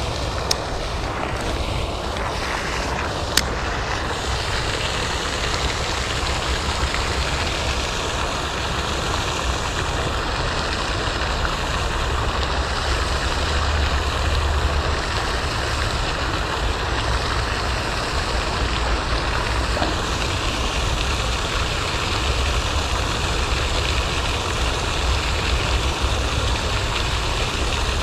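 Steady rushing splash of a pond aerator fountain, with wind buffeting the microphone in a low, unsteady rumble. Two sharp clicks, about half a second and three seconds in.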